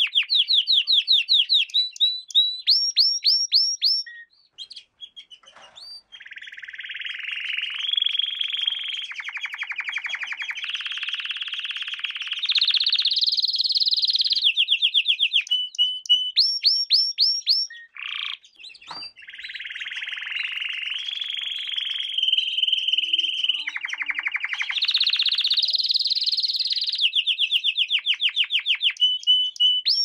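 Domestic canary singing: long phrases of rapidly repeated notes and trills, switching to a new rolling pattern every second or two, with two short pauses.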